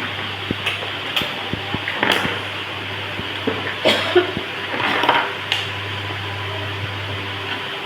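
A steady whir of a small electric motor and fan with a low hum underneath, with scattered light clicks and knocks on top.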